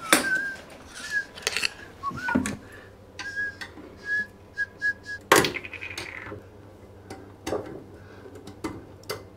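Metal tools clinking and scraping against a toilet's closet bolt as its nut is worked loose, with a sharp clank about five seconds in. Short, high, whistle-like notes come and go in the first half.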